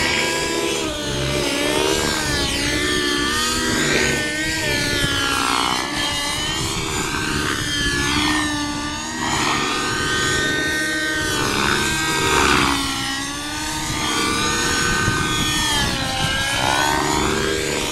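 Radio-controlled model helicopter in flight: a high engine and rotor whine whose pitch keeps gliding up and down as it swoops and turns through aerobatic manoeuvres.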